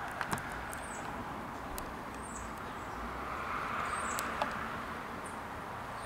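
Steady rush of distant road traffic, swelling a little past the middle as a vehicle goes by, with faint, short, high chirps of small birds now and then and a few sharp clicks near the start.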